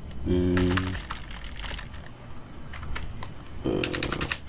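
Computer keyboard: scattered keystrokes as text is typed into a field and then deleted. A short held voice-like hum about half a second in and a brief vocal sound near the end sit among the clicks.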